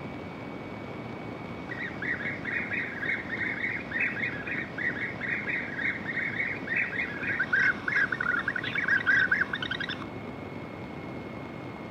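Several European bee-eaters calling, many short repeated calls overlapping in a busy run that starts about two seconds in and stops about ten seconds in, over a steady background hiss.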